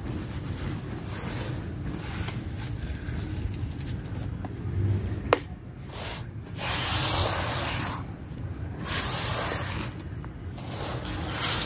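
Dry, gritty sand-cement crumble rustling and hissing as gloved hands rake and sift through it in a basin. There are several louder swishing rushes in the second half, and one sharp click a little after five seconds.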